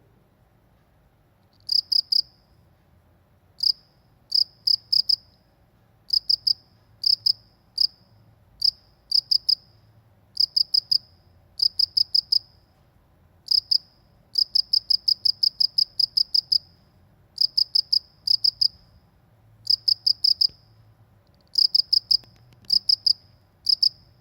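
A cricket chirping, high-pitched, in short groups of a few rapid pulses about once a second, with one longer run of pulses around the middle. It starts about two seconds in over a faint low background hum.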